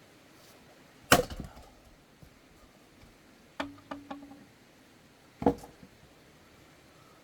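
Axe blows splitting firewood logs: three sharp chops about two seconds apart, the first the loudest. The middle chop is followed by a couple of quick wooden knocks.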